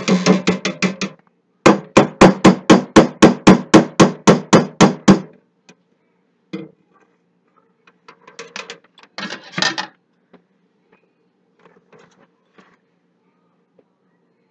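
Stick blender head tapped rapidly against the rim of a stainless steel pot to knock off soap batter: quick metallic knocks, about five a second, in two runs over the first five seconds, then a shorter flurry later.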